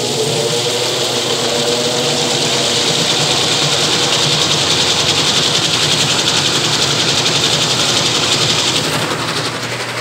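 Brastemp Baby BLK20 washing machine spinning a soaked rug in its spin cycle: a steady motor hum with a tone that rises as the drum speeds up in the first couple of seconds, under a loud rush of water being flung out of the drum. The rush drops off about nine seconds in.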